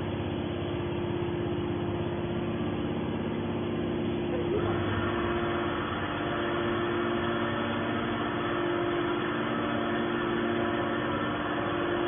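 TCM hydraulic scrap metal baler running: its motor and hydraulic pump give a steady hum. About four and a half seconds in, a hissier, brighter layer joins the hum and holds.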